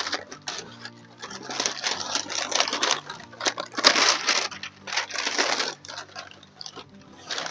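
Brown kraft packing paper crinkling and rustling as it is pulled and unfolded inside a cardboard box, in uneven spells of crackling, loudest about four seconds in.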